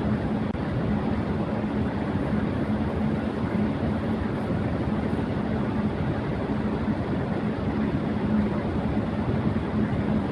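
Electric fan running at high speed: a steady rush of air with a constant low hum from the motor and blades.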